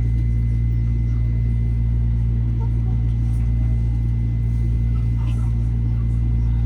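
Inside a Metro-North M7A electric train car: a steady, loud low rumble and hum from the running train, with a faint constant high whine held on one note.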